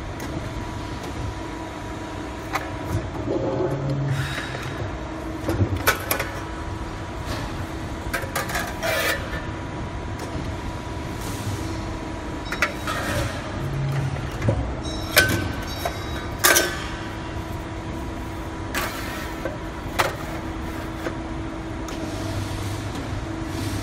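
WE67K 125-ton CNC hydraulic press brake idling with a steady hum, while a steel sheet is slid and set against its back gauge and die, giving scattered clanks and taps, the loudest a little past the middle.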